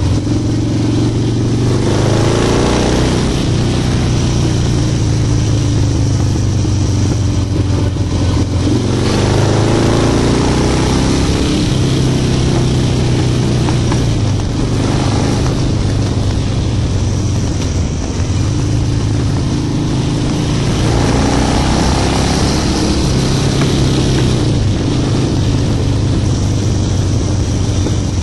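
Harley-Davidson Low Rider's V-twin engine running on the road, rising in pitch as it accelerates about two seconds in, around nine seconds in and again around twenty-one seconds in, with a steady rush of wind noise over it.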